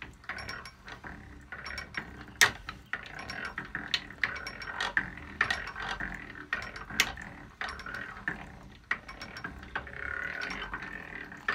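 Hand-cranked post drill turned slowly, boring a number 7 bit through a short piece of Schedule 40 steel pipe: the drill's gears click and rattle over a steady scraping of the bit cutting metal, with a few sharper clicks.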